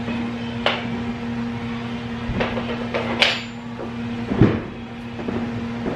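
A few knocks and clatters of a heavy ride-on toy car and its box being handled, the loudest a dull thump about four and a half seconds in, over a steady low hum.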